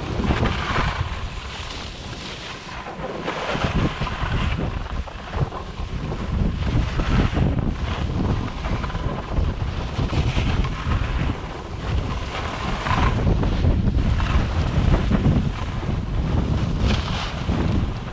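Wind buffeting a GoPro's microphone while skiing downhill, a constant low rumble, with the hiss of skis scraping over packed snow rising and falling every few seconds.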